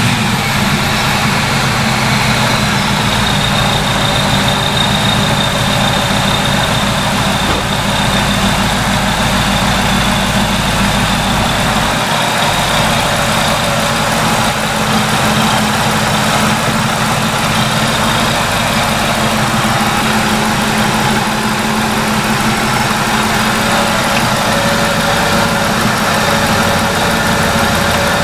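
The supercharged 5.4-litre V8 of a 2002 Ford F-150 Lightning idling steadily just after being started.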